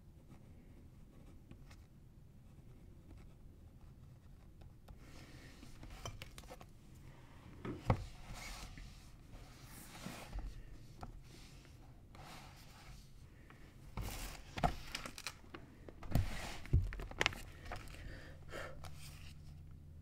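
Pages of a Bible being turned and the book handled: paper rustling in several bouts, starting a few seconds in, with a few soft knocks.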